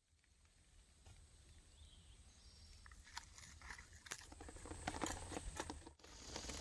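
Irregular crunching and crackling over a low rumble, growing louder from about three seconds in and breaking off sharply near the end.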